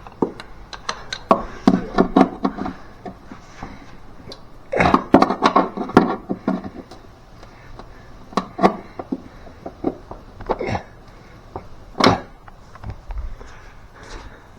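Irregular knocks, clicks and scraping as a tool works at the hole in a car's floor pan under the carpet, with a sharper knock about twelve seconds in.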